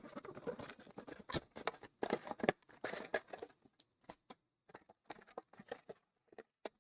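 Plastic shrink-wrap crinkling and tearing as a sealed box of trading cards is opened: a dense crackling rustle for the first three seconds or so, then scattered short crackles and taps.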